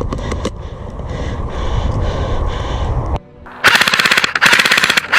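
Airsoft rifle firing two long full-auto bursts of rapid, evenly spaced shots, starting about three and a half seconds in with a brief break between them. Before the bursts there is a low rumbling noise.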